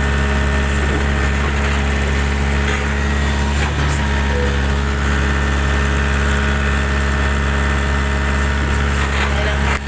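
Backhoe engine running steadily at a constant, idle-like speed: a loud low hum that holds even throughout.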